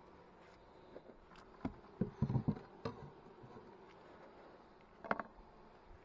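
Honey bees humming steadily around an open hive, with wooden knocks and bumps from the hive box and frames being handled. The loudest cluster of knocks comes about two seconds in, and another sharp knock comes about five seconds in.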